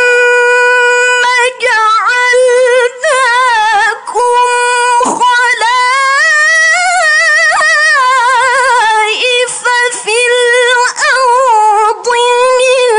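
A young woman's solo Quran recitation in the melodic tilawah (mujawwad) style: one long ornamented phrase of held, quavering notes with brief breaks. The pitch rises in the middle and falls back toward the end.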